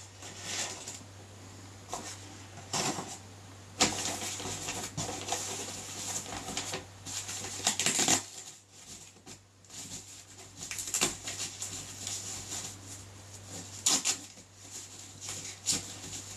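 Rustling and crinkling of unboxing packaging: plastic bags and paper or foam wrapping being handled in irregular bursts, with a longer stretch of steady rustling about four to eight seconds in.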